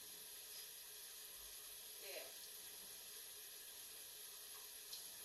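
Near silence: a steady faint hiss, with one brief faint falling sound about two seconds in.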